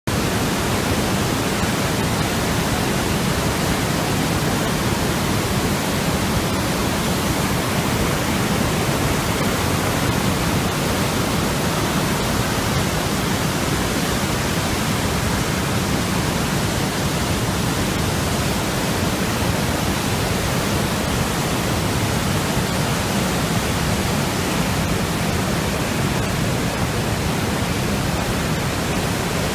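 A large waterfall and its rapids in full flow: a loud, steady rush of white water with a deep rumble underneath.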